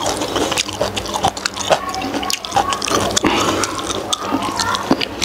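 Close-miked wet eating sounds: soft steamed pig skin squelching and smacking as it is chewed and pulled apart with a gloved hand, in many short sticky clicks.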